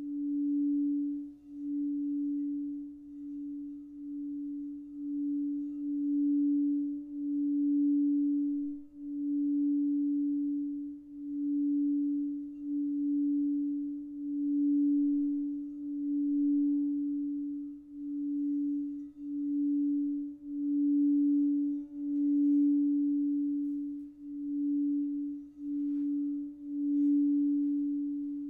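Crystal singing bowl sounding one steady, nearly pure tone, played around the rim, with its loudness swelling and dipping every second or two.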